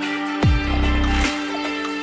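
Background electronic music with a steady held tone and a deep bass hit that sweeps down in pitch about half a second in, followed by a sustained low bass note.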